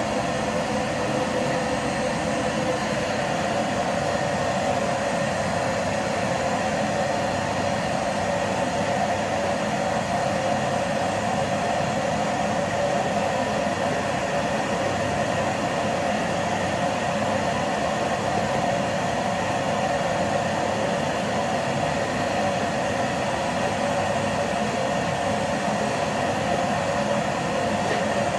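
Vacuum cleaner motor running steadily, a constant whirring hiss with a steady hum.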